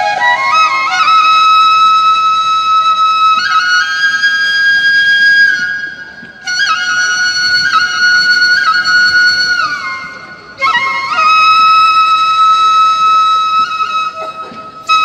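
A flute-like wind instrument playing a traditional melody in long held notes. Each phrase steps and slides down in pitch at its end, and there are brief breaks between phrases.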